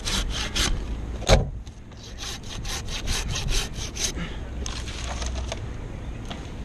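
Hand pruning saw cutting through a pine limb, quick back-and-forth strokes about six a second, in two runs with a pause between. A single sharp knock comes about a second in.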